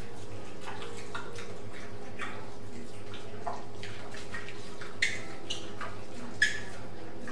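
Light, scattered clicks and taps of pig hooves on a hard tile floor over a steady camcorder hum and hiss, with two sharper clicks about five and six and a half seconds in.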